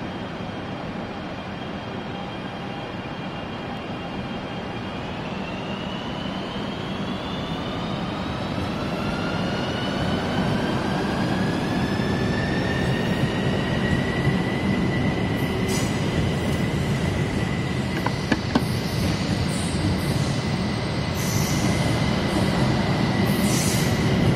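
CRH2A high-speed electric multiple unit pulling out and accelerating. From about five seconds in, its traction whine rises in pitch as several tones together, then holds steady, over a rumble of wheels and running gear that grows louder, with a few short clicks near the end.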